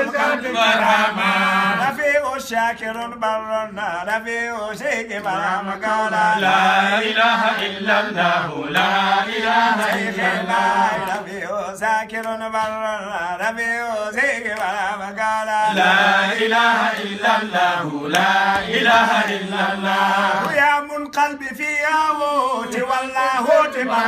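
Men chanting an Arabic Islamic devotional chant (dhikr), with long, winding melodic lines sung over a steady low held note.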